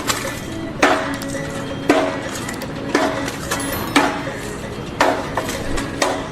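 Hammer blows struck at an even pace of about one a second, six in all, each ringing briefly after the strike.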